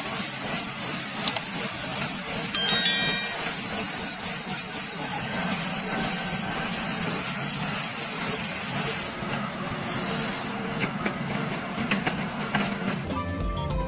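A machine running with a loud, steady hiss that eases off about nine seconds in.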